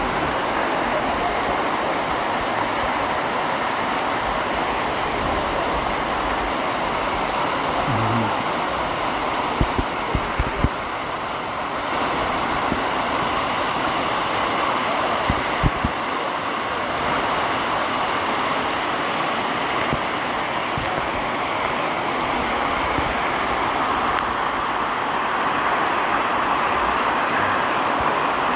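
Waterfall pouring into its pool: a steady rushing of water, with a few brief low bumps about ten and sixteen seconds in.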